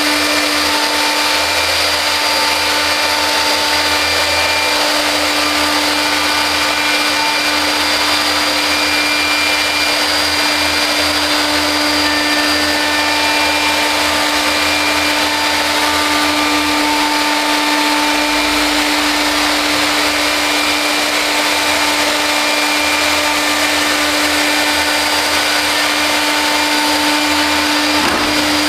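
Robot-mounted high-speed milling spindle on an ABB IRB 4400 running steadily, a constant tone with a rushing cutting noise as it routes slots in curved wooden panels.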